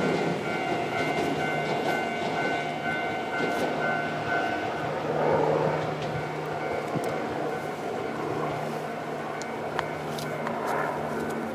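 Iyotetsu 3000 series electric commuter train running along the track, with wheel-on-rail rumble and steady high tones held above it. There are a few short clicks in the second half.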